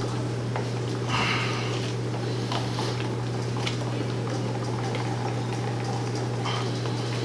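Two-part epoxy resin being stirred in a plastic cup with a wooden stick that scrapes the cup's sides and bottom: faint scrapes and light ticks, with a brief louder scrape about a second in. A steady low hum runs underneath.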